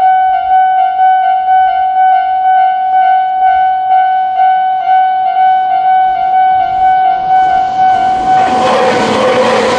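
Japanese railway level-crossing warning alarm ringing a shrill, high electronic tone that repeats about twice a second. About eight seconds in a train runs through the crossing, and its rumble and wheel noise swamp the alarm.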